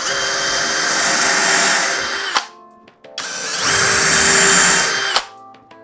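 Deko 20V cordless brushless drill boring into a plywood panel in two runs of about two seconds each, with a steady motor whine, each run ending in a short click as it stops.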